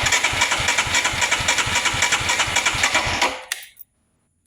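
2022 Royal Enfield Himalayan's 411 cc single-cylinder engine being turned over by its electric starter in an even, fast rhythm for about three seconds, then stopping without firing. It cranks but won't start because the fuel pump isn't priming, which the owner puts down to a failing fuel pump.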